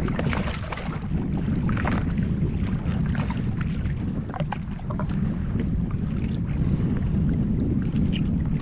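Wind buffeting the microphone in a steady low rumble, with water slapping and splashing against the hull and scattered short clicks.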